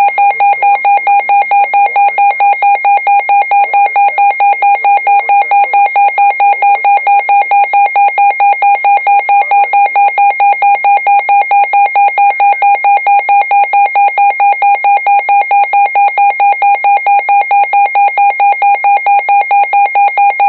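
Emergency Alert System warning tone: a loud electronic beep at one steady pitch with higher overtones, pulsing rapidly about four to five times a second without a break.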